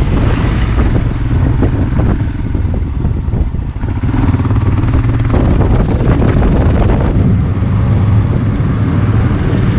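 Motorcycle engine running steadily as the bike rides along, heard from on the bike. A large tipper truck passes close by right at the start.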